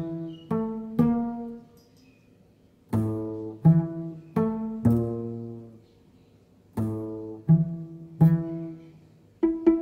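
Background music: pizzicato string notes in short phrases of three or four notes, each phrase followed by a pause of about a second.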